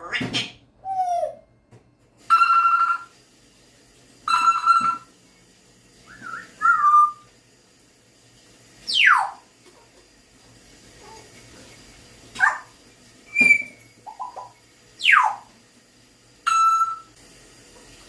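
African grey parrot whistling and mimicking in a string of separate calls a second or two apart: sharp falling whistles alternate with short steady ringing tones like a phone, and a brief warbling note.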